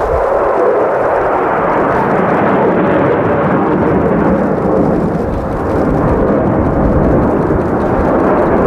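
F-16 fighter jet's engine noise, a loud steady jet sound, as the jet flies a hard demonstration turn with its afterburner lit at first.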